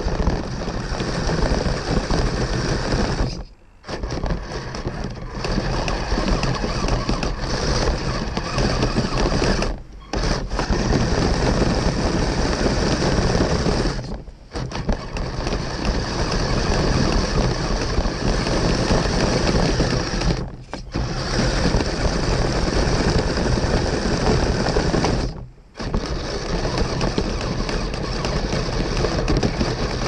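Kyosho Blizzard SR radio-controlled snowcat's electric drive whirring, with gears and tracks clattering as it pushes through snow. It cuts out abruptly five times for a moment and then starts again.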